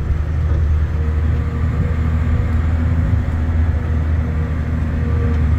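Steady low drone of a large mining haul truck's diesel engine and drivetrain, heard from inside the cab while it drives along a rough haul road.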